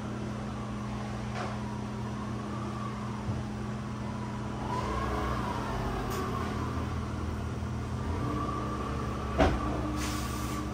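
A steady low motor hum, with one sharp knock near the end.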